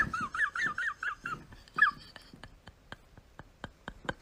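Kitten making rapid, high, wavering whimpering squeaks for about two seconds, then a run of faint even clicks, about four a second.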